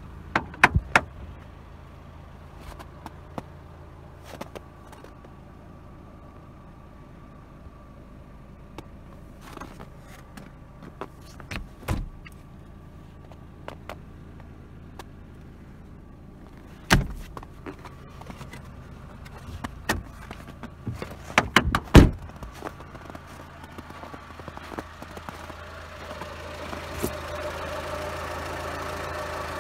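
Car door and handling noises: several sharp knocks and thumps, the loudest about 17 and 22 seconds in, over a steady low hum. In the last few seconds a car engine idling comes up louder and stays steady.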